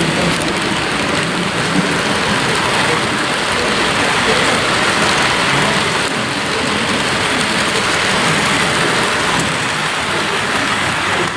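Steady, loud wash of hall noise with no distinct events: the blurred hubbub of a busy exhibition hall, voices and running model trains merging into one even roar.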